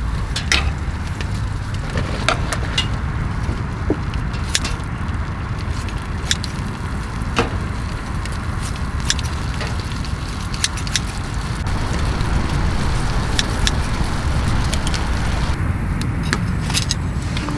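Firewood burning in a folding wood stove soon after catching: scattered sharp crackles and pops over a steady low rumble.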